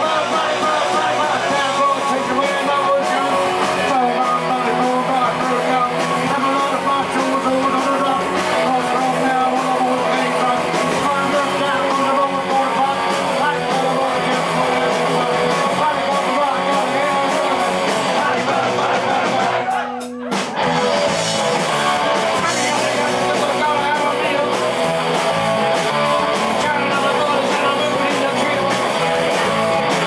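Live punk rock band playing: electric guitars and a man singing into a microphone, with a brief half-second drop-out about two-thirds of the way through.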